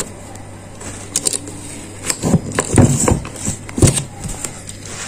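BMW E39 ignition lock assembly handled with its key in the cylinder: a string of sharp metallic clicks and knocks with keys rattling, thickest about two to four seconds in.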